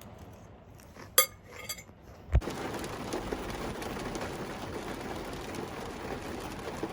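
A few light clinks of cutlery on a dish, then a thump about two and a half seconds in, followed by steady heavy rain.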